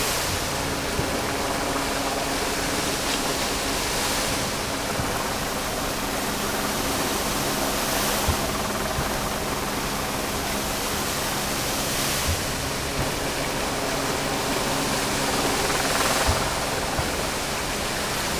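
Large plaza fountain's vertical water jets spraying up and splashing back into the basin: a steady rushing of falling water that swells slightly about every four seconds.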